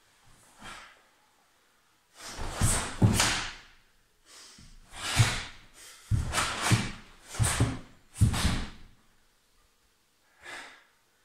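Karate gi snapping and swishing with quick strikes and blocks, with bare feet thudding and sliding on a wooden floor. The sharp bursts come in a broken series of about six, with a fainter one near the end.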